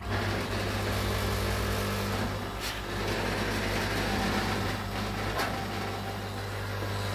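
Membrane (diaphragm) air compressor, rated 130 litres a minute, switching on abruptly and running with a steady low hum, with a rushing hiss of air bubbling up through a foam-rubber aeration hose ring in a tub of water.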